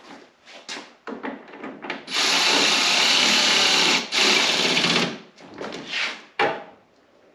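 Power drill running for about two seconds, stopping briefly, then running about another second. Short knocks and clatter of parts being handled come before and after.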